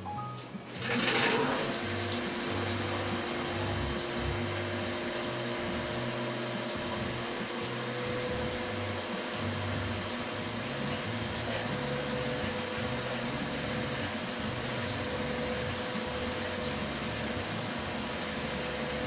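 Flood coolant spraying from the nozzles of a CNC mill's coolant ring onto a drill bit, coming on suddenly about a second in and then running steadily, with a faint steady motor tone underneath.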